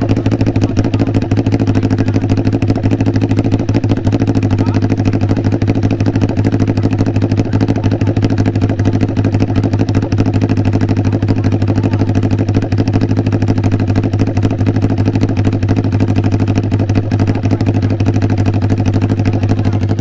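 Kawasaki Ninja 400 motorcycle engine idling steadily through an aftermarket SC-Project slip-on exhaust.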